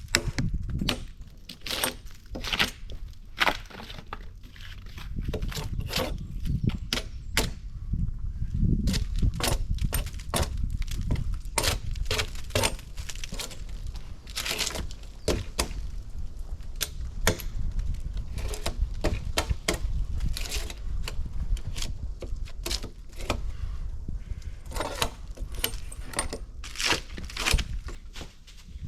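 Dry twigs and branches cracking and snapping over and over at an irregular pace, with low rustling and handling noise underneath.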